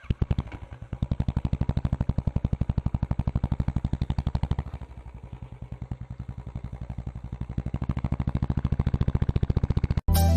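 Royal Enfield motorcycle engine running with an even, rapid thumping beat as the bike moves off; it eases back about halfway through and picks up again. Music cuts in abruptly just before the end.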